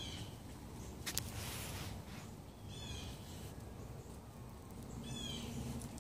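A bird calling: a short, falling chirped call three times, two to three seconds apart, over a steady low background rumble. A sharp click about a second in.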